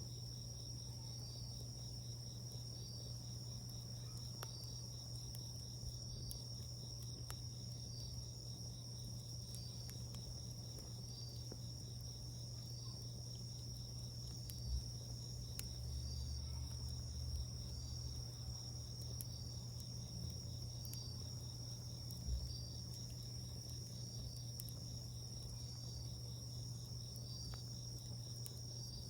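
Crickets trilling steadily, high-pitched, with a pulse about every second and a half, over the scattered sharp crackles of a wood campfire. Two brief low thumps, the loudest sounds, come about halfway through and again a few seconds later.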